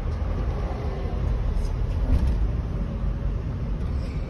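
Wright Gemini double-decker bus heard from inside the upper deck: a steady low rumble of engine and road noise as it drives along.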